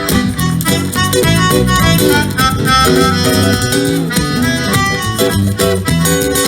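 Live acoustic band playing an instrumental break between verses of a song, a quick run of melody notes over chordal accompaniment.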